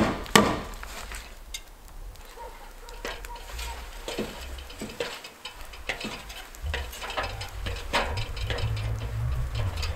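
Two sharp knocks at the top of an aluminium extension ladder, then irregular clanks and knocks of boots and hands on the metal rungs as a worker climbs down the ladder.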